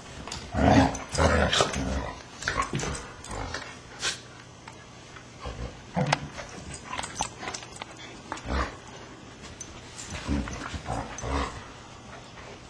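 A Shiba Inu and an Akita play-fighting, growling in irregular short bursts, loudest in the first two seconds, with sharp clicks and knocks between the bursts.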